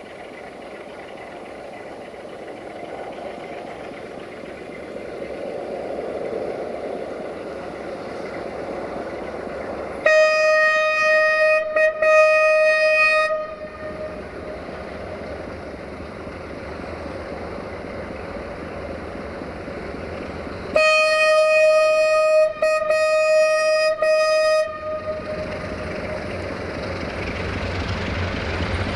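Romanian 060-DA (LDE2100) Sulzer diesel-electric locomotive approaching with a freight train, its engine running and growing louder. It sounds its horn twice: once about ten seconds in for some three seconds, and again about twenty-one seconds in for some four seconds, each blast broken by brief gaps.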